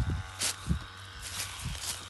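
Footsteps on dry straw and leaf mulch: a few irregular low thumps, some with short rustles.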